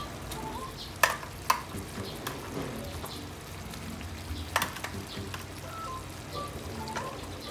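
Chunks of chayote dropped by hand into a pot of simmering chicken, with three sharp knocks as pieces hit the pot, about a second in, half a second later, and around four and a half seconds in, over a steady sizzle from the pot.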